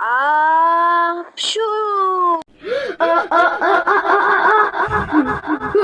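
High-pitched cartoon voice drawing in a long 'ahh' and then sneezing, 'achoo', with a short hissy burst at the sneeze. It is followed by several high cartoon voices crying out at once, overlapping and wailing.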